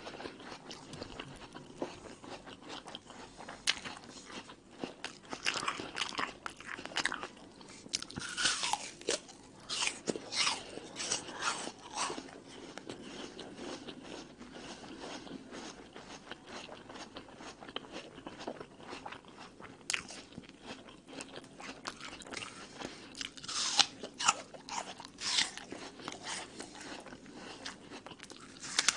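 Crunching bites and chewing of a raw red apple, with crisp crunches coming in clusters a few seconds in and again near the end, and quieter chewing between.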